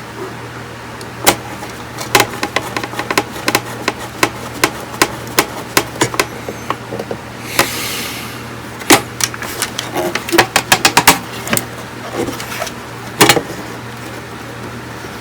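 Irregular sharp clicks and taps of small hand tools working on a circuit board, with a brief hiss about eight seconds in, over a steady low hum.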